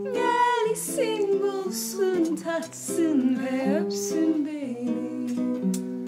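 Song: a voice singing a winding line that bends up and down in pitch over plucked acoustic strings. The voice drops out about four and a half seconds in and the strings carry on.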